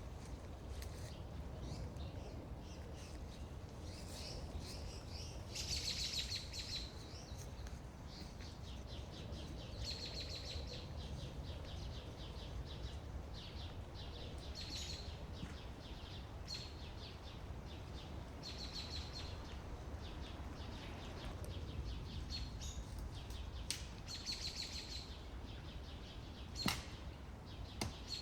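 A small bird giving short, high, fluttering trills every few seconds over a low steady background rumble, with a couple of sharp knocks near the end.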